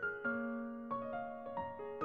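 Background piano music: single notes struck a few times a second and left to ring over one another.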